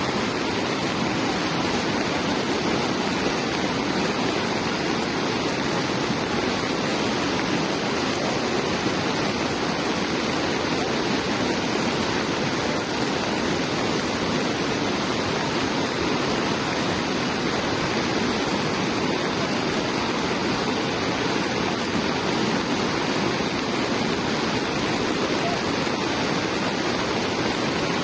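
Fast-flowing floodwater from a flash flood rushing past in a steady, unbroken rush.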